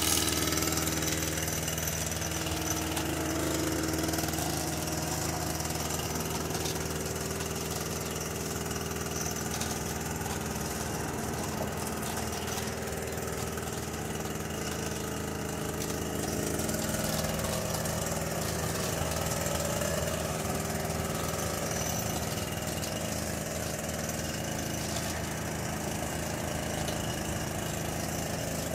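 Small gasoline engine running steadily, with a wavering higher note that rises and falls now and then.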